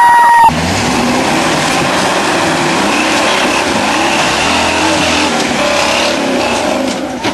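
Rock buggy's engine revving hard as it climbs a rock ledge, its pitch rising and falling with the throttle. It opens with half a second of a loud, held high note before a sudden cut to the engine.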